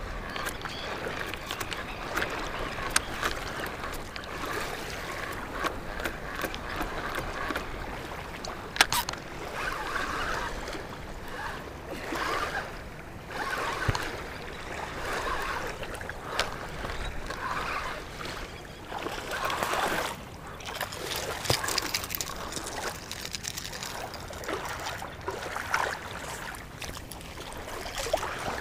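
Spinning reel being cranked in short spells, with small waves lapping at the shoreline and scattered sharp clicks from handling the rod and reel.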